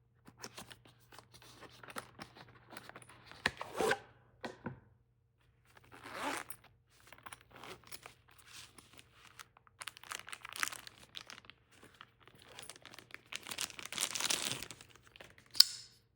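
Knife packaging being unwrapped by hand: irregular bursts of tearing and crinkling, louder in a long stretch near the end, with a sharp snap just before the end.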